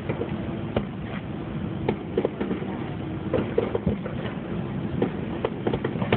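Fireworks grand finale: aerial shells bursting in a rapid, irregular run of bangs, more of them near the end, over a steady low background noise.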